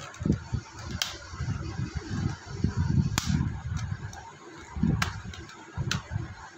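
Plastic case of a Casio calculator being pried open with a thin tool, its snap clips popping loose in four sharp clicks over low handling rustle.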